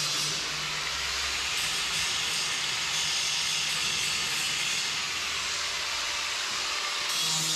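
Power grinder buffing the zinc galvanizing off a steel frame joint to bare metal ready for welding: a steady abrasive hiss.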